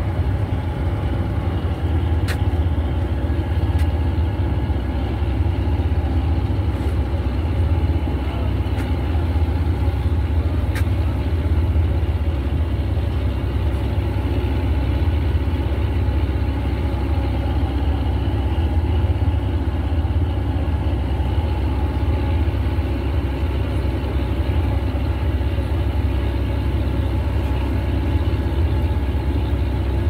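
Boat engine running steadily, a deep continuous hum.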